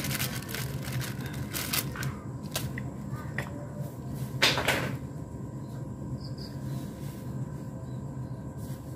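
Handling of an opened detergent-powder sachet and a container: a few light clicks and knocks, and one short rustle about four and a half seconds in, over a steady low hum.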